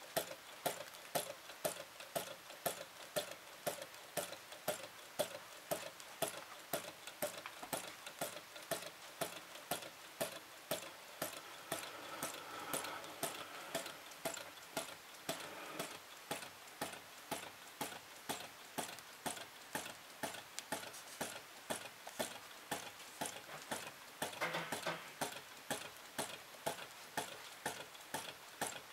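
Flame-eater (vacuum) model engine running on a spirit flame, ticking steadily about three times a second with each turn of its flywheels.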